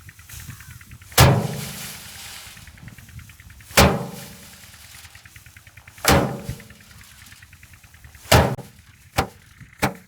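Bundles of harvested rice stalks beaten by hand against a drum to thresh the grain: four heavy strikes about two and a half seconds apart, each ringing briefly, then two lighter, quicker hits near the end.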